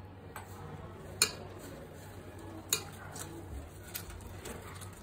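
Masala spice paste being mixed by hand in a stainless steel bowl: soft wet stirring with a few sharp clicks against the steel, the two loudest about a second and a half apart.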